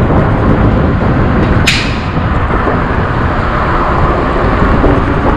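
Steady wind and road noise on the microphone of a moving e-bike, with city traffic around it. A single sharp, hissing burst cuts through about a second and a half in.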